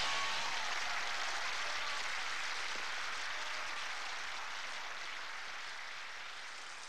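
Audience applause, a dense steady clapping that gradually fades away.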